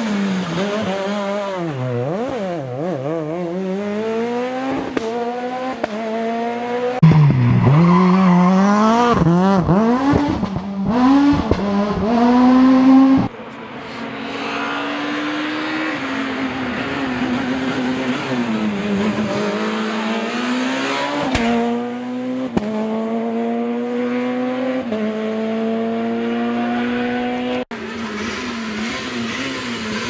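Rally car engines at full throttle on a tarmac stage. The pitch climbs and drops back repeatedly as the cars shift gear and lift for the hairpins, and the sound cuts from one car to the next, loudest as a car passes close by in the middle.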